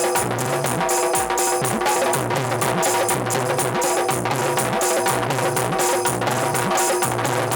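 Instrumental Bundeli rai folk music: quick, steady drumming over held melody notes, with no singing.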